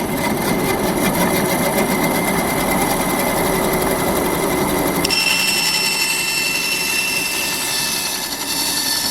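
Electric power tool running steadily. About halfway through, the lower part of the sound drops away and a high whine comes through.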